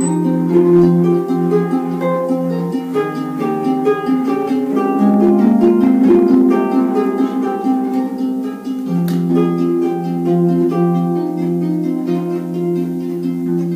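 Antique Erard pedal harp played solo: plucked notes ringing over a held low note, with a quicker run of notes about midway through.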